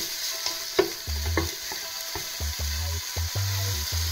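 Diced bacon sizzling as it fries in a nonstick pot, stirred and pushed around with a wooden spatula that knocks and scrapes against the pan many times.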